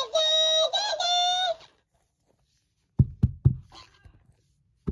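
A talking toy panda's high, sped-up voice repeating a sung 'da da da' in held notes, stopping about a second and a half in. After a short gap, several sharp knocks about three seconds in, quickly trailing off into fainter taps.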